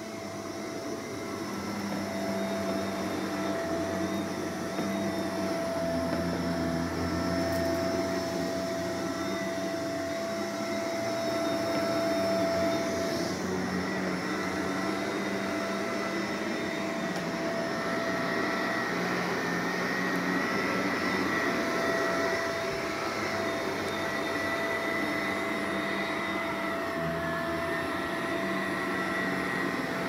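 Shark Navigator upright vacuum cleaner running steadily, a motor whine of a few steady pitches over the rush of suction, as it is pushed over thick shag carpet.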